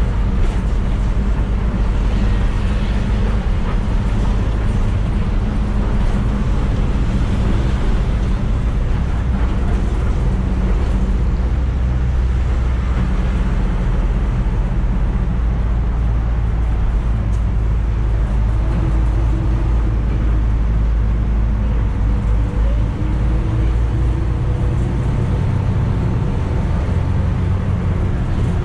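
Passenger bus heard from inside the cabin while moving: a steady low engine drone with road rumble, and the engine note shifting slightly in the second half.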